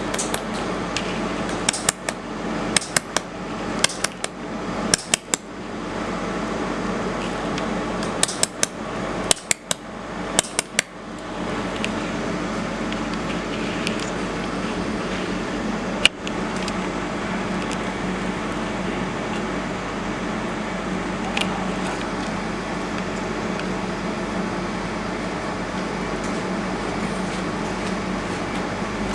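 Steady hum of a fiber laser welding machine's cooling fan, with runs of sharp clicks in quick pairs and triples over the first eleven seconds, then two single clicks later on.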